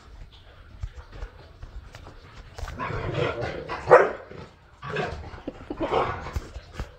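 Dogs barking in excited play: several barks from about three seconds in, the loudest about four seconds in.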